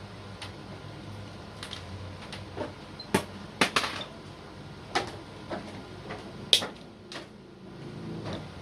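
Scattered sharp clicks and light knocks, about a dozen at irregular intervals, from handling 1 mm stainless steel spring wire and tools while making a coil spring. A faint low hum runs under the clicks in the first few seconds.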